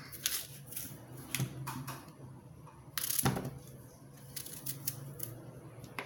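Small kitchen knife cutting through a fresh apple held in the hand: a series of short clicks and snaps, the loudest a little past halfway.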